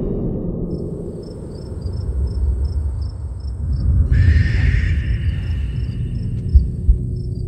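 Crickets chirping in an even rhythm, with a steady high trill, over a low droning background. A brighter rushing swell comes about four seconds in, and two low thumps come near the end.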